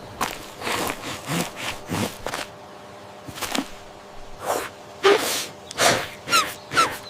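Animation sound effects: a string of short, soft noises, irregularly spaced about one or two a second, over a faint steady hum, with a few quick falling squeaks near the end.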